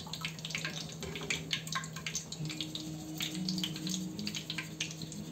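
Hot oil in a kadai crackling and popping irregularly around frying curry leaves.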